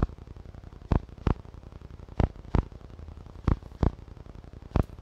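Sharp clicks in pairs, one pair about every 1.3 seconds, repeating in an even rhythm over a low hiss.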